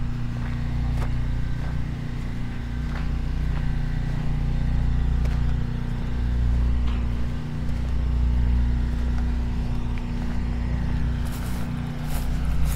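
A steady low hum and rumble that swells and fades, with faint footsteps on a concrete sidewalk. Near the end come a few louder scuffing, hissing sounds.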